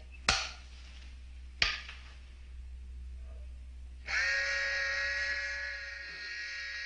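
Two sharp clicks, then about four seconds in a steady electronic buzzing hum starts and holds. It is the sound effect of the force-field generator being switched on and running.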